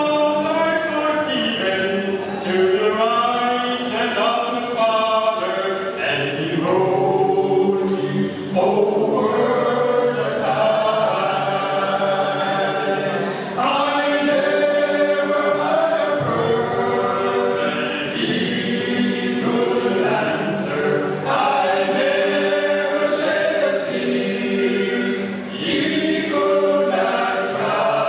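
A choir singing a hymn in several parts, with long held notes.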